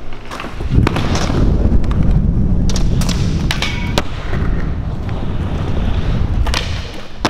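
Skateboard dropping in and rolling on the smooth concrete of an indoor skatepark: a steady wheel rumble starts about a second in and is broken by several sharp clacks of the board as tricks are popped and landed during the line.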